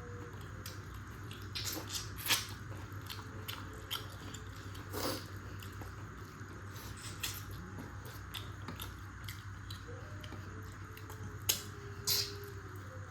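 Close-up eating sounds of chicken curry and rice: chewing, wet mouth clicks and smacks. A few louder clicks stand out over a steady low hum.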